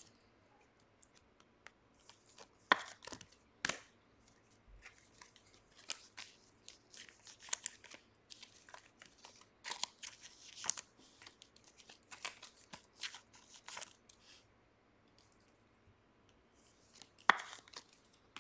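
Trading card packs being torn open and the cards handled: irregular short rips, crinkles and rustles of wrappers and cards, with a brief lull about three-quarters of the way through.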